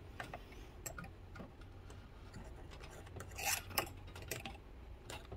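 A steel scribe marking the boat's plastic hull through a trim tab's mounting hole: faint light ticks and clicks, with a couple of short scratching strokes a little past the middle.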